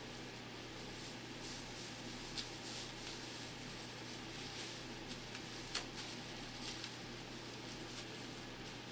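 Soft handling noises of hair and fabric being worked by hand, with a few small, sharp clicks and rustles scattered through, over a steady low hum.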